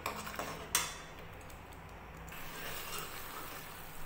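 Steel ladle stirring and scraping a thick onion-tomato masala frying in ghee in a metal kadhai, with a sharp clink of the ladle against the pan under a second in, then quieter stirring. A faint low hum runs underneath.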